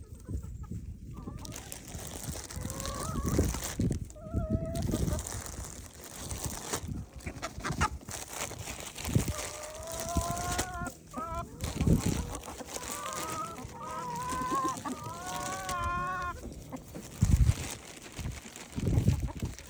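Chickens clucking and calling, with several wavering calls; the longest, about two-thirds of the way in, is a rooster crowing.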